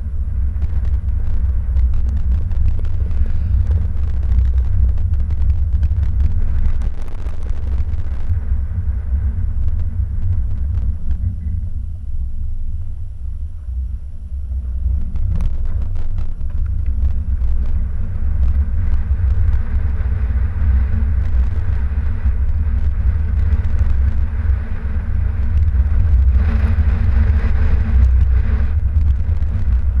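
Car driving on a snow-covered road, a steady low rumble of road and tyre noise. It eases briefly near the middle and gets louder for a couple of seconds near the end.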